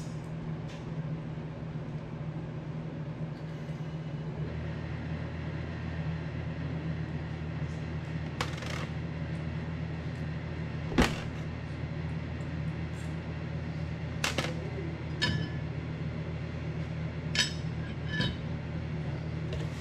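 Metal parts and a hand tool clinking and clicking now and then as parts are fitted onto a race car engine's intake, a handful of sharp clicks with the loudest near the middle. A steady low hum runs underneath and deepens about four seconds in.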